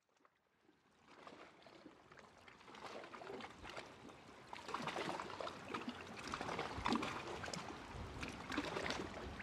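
Water washing and trickling, fading in from silence about a second in and growing gradually louder, with many small crackles.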